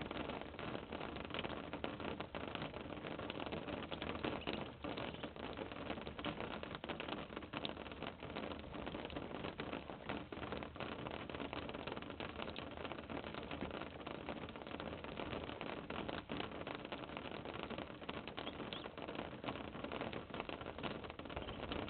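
Muscovy ducklings shuffling and pecking about in wood-shaving bedding: a steady, dense crackle of small rustles and clicks over an even hiss.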